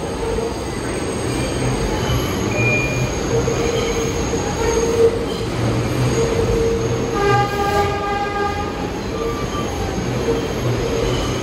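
R62A subway train pulling into a station, its wheels rumbling and squealing on the rails as it slows. About seven seconds in, a brief higher-pitched tone with several overtones sounds over the rumble.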